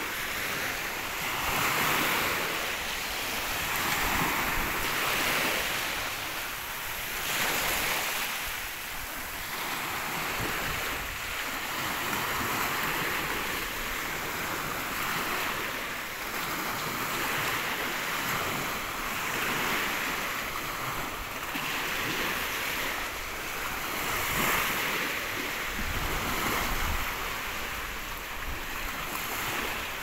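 Small sea waves washing up and breaking in foam on a shallow shore, the wash swelling and easing every two to three seconds. Wind rumbles on the microphone near the end.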